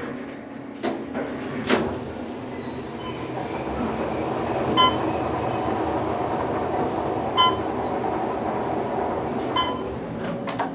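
Otis bottom-drive traction elevator car travelling: a steady rumble and rush of air inside the cab, with a short electronic chime sounding three times a couple of seconds apart as floors pass. Two knocks sound within the first two seconds.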